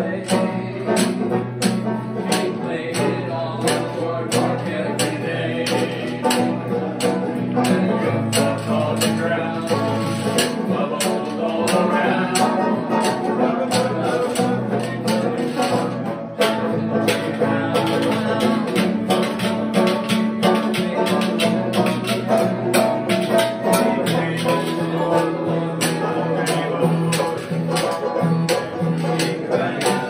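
Live acoustic string-band music: an acoustic guitar strummed and a banjo picked, with the rhythmic scrape and clatter of a washboard fitted with a cymbal. A man sings along.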